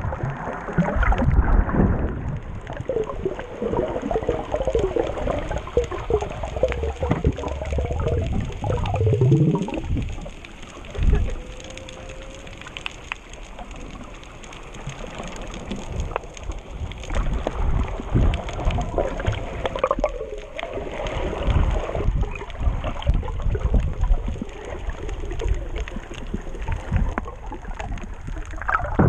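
Water heard through an underwater action camera: steady churning and gurgling with irregular knocks and thumps, over a faint, steady high whine.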